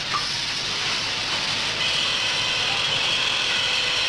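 Stereotype plate-casting machine running as it casts curved lead printing plates: a steady mechanical hiss and rumble, with a few steady whining tones coming in about two seconds in.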